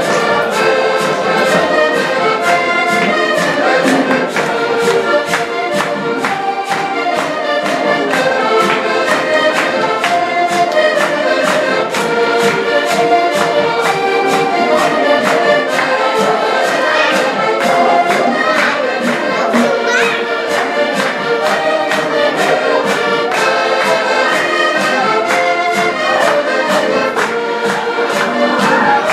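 Accordions playing a Portuguese folk tune together over a steady beat.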